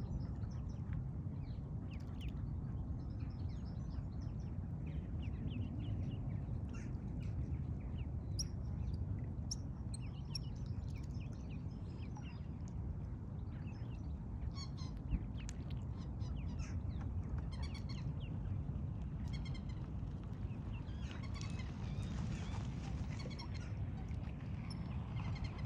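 Ducklings peeping: many short, high-pitched peeps throughout, over a steady low rumble.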